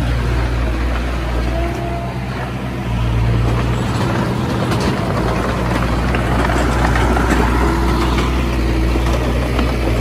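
Komatsu D20A bulldozer's diesel engine running steadily, getting louder about three seconds in.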